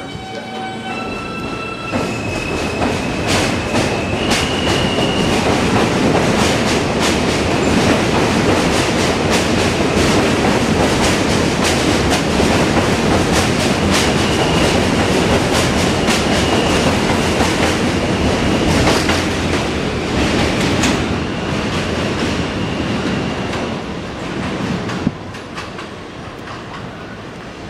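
R160A-2 New York City Subway train pulling out of the station. Its traction motors whine, rising in steps over the first few seconds, then its wheels clatter over the rail joints as the cars speed past. The sound fades away after about 24 seconds, with one sharp click near the end.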